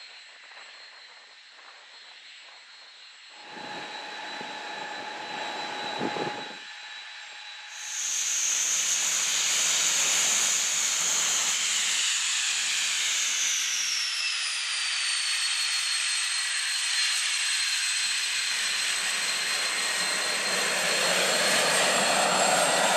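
T-38 Talon's twin J85 turbojet engines running with a loud, high-pitched whine that comes in about a third of the way through. Partway through, the whine slides down in pitch and then holds steady.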